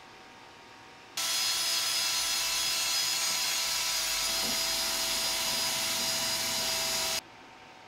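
Wire wheel on a bench grinder scrubbing surface rust off a steel air-spring mount: a steady grinding hiss with a constant whine under it. It starts suddenly about a second in and cuts off about six seconds later.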